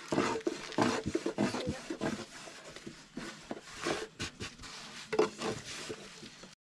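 Irregular crackling and tapping as small hands pat and handle a stack of thin, dry tiri flatbread in a metal basin.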